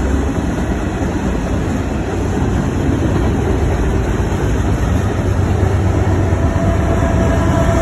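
Freight train cars rolling past with a steady low rumble, growing louder as a Norfolk Southern GE AC44C6M diesel locomotive approaches. A steady whine comes in about six seconds in.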